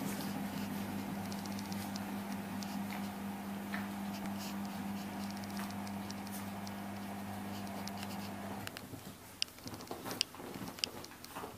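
Light pattering and scratching of a small Maltese dog moving about under a blanket on its bed. A steady low hum runs underneath and cuts off about three-quarters of the way through, after which a few sharper clicks stand out.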